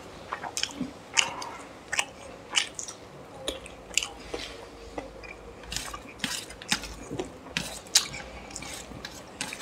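Two people eating curry and rice by hand, close to the microphone: wet smacking and chewing in short, irregular clicks, one or two a second, with the squish of curry-soaked rice pressed between fingers.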